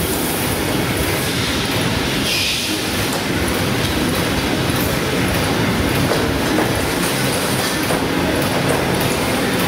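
LVD Shape Delta CNC turret punch press running, a loud, steady mechanical clatter of rapid knocking. There is a short hiss about two and a half seconds in.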